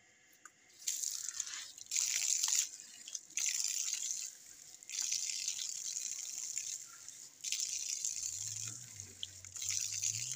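Water running from an outdoor wall tap and splashing over cupped hands and a face being washed. The flow starts about a second in and comes in uneven surges with short breaks as the hands catch and throw the water.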